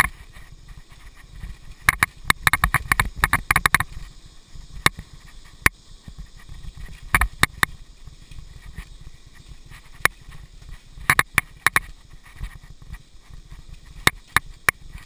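Mountain bike ridden over a dirt forest singletrack: a steady low rumble of tyres and wind on the microphone, broken by irregular clusters of sharp rattles and knocks as the bike goes over roots and bumps.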